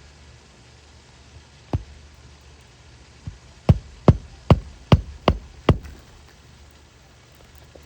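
A single sharp knock, then a quick run of six loud sharp knocks, about two and a half a second, over a steady low hum.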